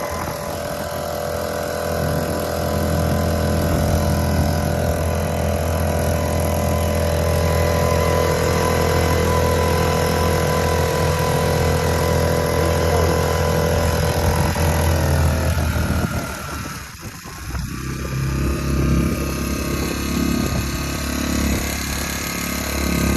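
Small 4 hp four-stroke air-cooled outboard motor running steadily at full throttle. About sixteen seconds in its sound briefly drops off, then picks back up.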